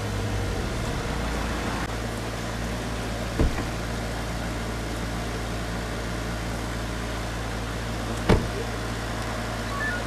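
Steady low hum of a car engine idling, with two short knocks, one about three and a half seconds in and one about eight seconds in.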